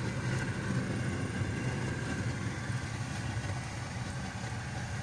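A car's engine and tyre noise heard from inside the cabin while driving: a steady low hum.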